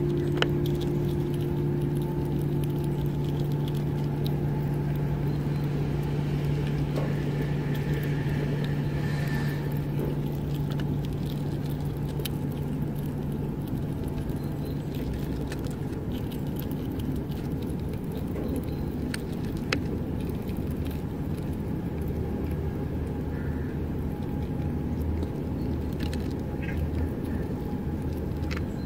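Steady low hum and rumble throughout, with a few faint, scattered clicks and scrapes as a Eurasian red squirrel handles and nibbles peanuts on a wooden board.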